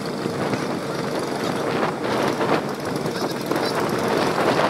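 Komatsu excavator's diesel engine running steadily under work, with a few knocks near the middle.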